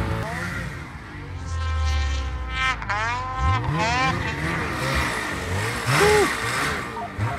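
Ski-Doo Summit 850 snowmobile's two-stroke engine revving, its pitch sweeping sharply up and back down several times in the middle as the throttle is worked.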